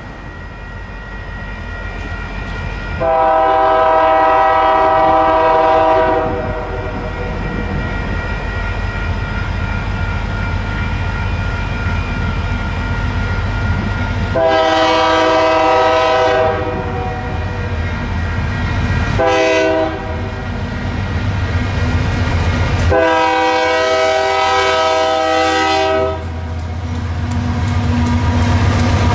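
Nathan K3HA three-chime horn on a Union Pacific GE C44AC locomotive sounding the grade-crossing signal: long, long, short, long. A low locomotive rumble runs beneath it and grows louder near the end as the train draws near.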